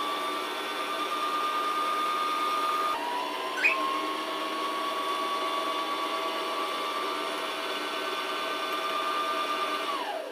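Brother ST371HD sewing machine's motor running at speed to wind a bobbin: a steady whine that dips briefly about three seconds in and picks up again, then falls in pitch and stops near the end once the bobbin holds enough thread.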